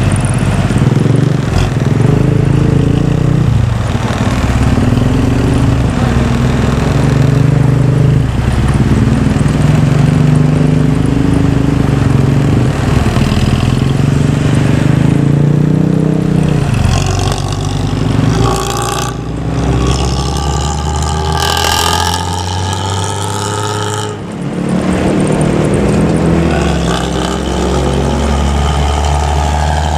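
Bus diesel engine running through a loud, growling ('ngorok') exhaust, rising and falling in pitch as it pulls along. Higher-pitched tones join it for several seconds past the middle. Over the last third it settles to a steady low idle.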